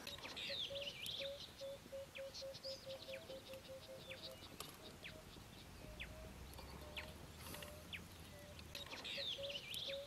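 Birds calling: a steady run of short, low piping notes, about three or four a second, with quick high chirps that fall in pitch scattered over them.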